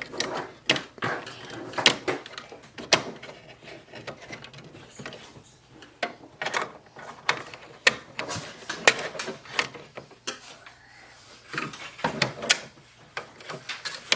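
A screwdriver prying an inkjet print head up out of its carriage, with irregular clicks and knocks of the parts being worked loose.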